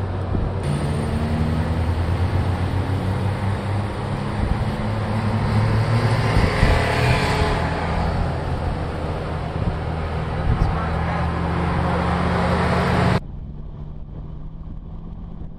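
Mercedes-Benz G550's V8 SUV driving on a road: a steady low engine drone with tyre and road noise, swelling in the middle. About two-thirds of the way through it cuts abruptly to a quieter engine drone with wind.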